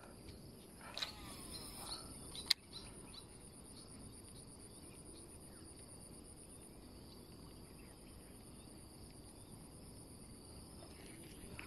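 Insects chirring in a steady, high, fast-pulsing tone, with a few sharp clicks in the first three seconds.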